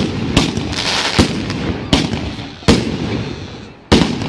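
Aerial fireworks bursting overhead: about six sharp bangs, roughly one a second, with crackling and hiss between them.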